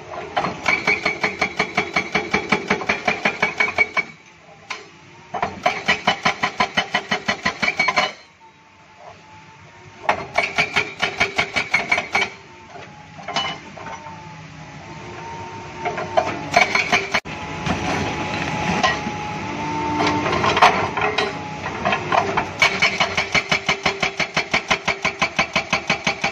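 Hydraulic breaker on a Doosan DX200A excavator hammering rock, in bursts of two to four seconds at about eight blows a second. Between the bursts the excavator's engine and hydraulics keep running.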